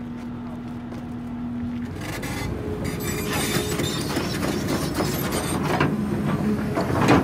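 A heavy construction machine runs with a steady hum that gives way, about two seconds in, to louder working noise. Scraping and metal knocks follow as a pipe is handled, with the sharpest knocks near the end.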